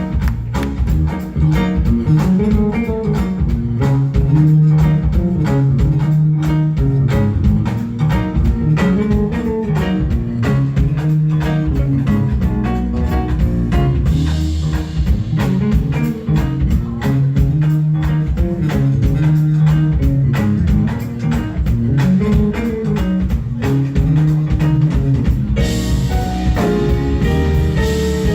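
Live jazz band playing: drum kit keeping a steady beat under a repeating electric bass line, with guitar prominent.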